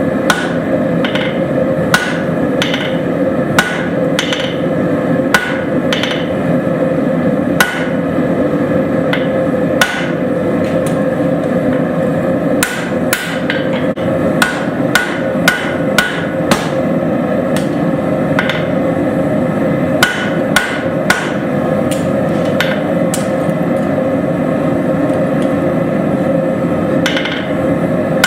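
Hand hammer striking hot steel on an anvil in irregular blows, roughly one or two a second with short pauses, each blow leaving a brief metallic ring, over a steady rushing noise.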